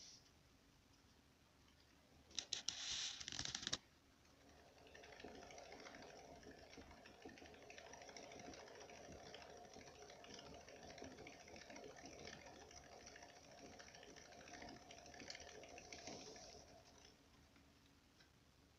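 Syrian hamster's paws tapping quickly and steadily on the cork running surface of a Trixie wooden exercise wheel, which turns almost silently on its ball bearing. The tapping starts about four seconds in and fades out near the end. About two seconds in there is a short, loud burst of rattling clicks.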